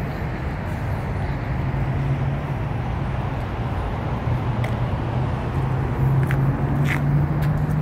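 A steady low engine hum over outdoor background noise, with a few short clicks about five to seven seconds in.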